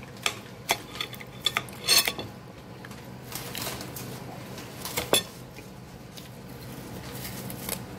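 Metal spoon and fork clinking and scraping against a ceramic salad bowl, with a quick run of clicks in the first two seconds and two more about five seconds in.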